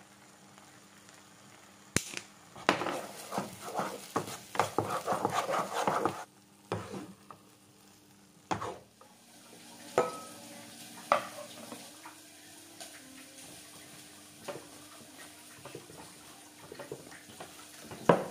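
Wooden spatula stirring thick tomato sauce in a nonstick pan: a dense run of scraping and clacking strokes from about two to six seconds in. Later come scattered soft knocks and clicks as pizza dough is kneaded by hand in a glass bowl.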